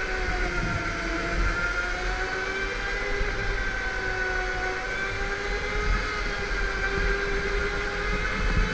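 Go-kart running at speed, its drive giving a steady whine that rises and falls gently in pitch as it speeds up and slows, over a low rumble.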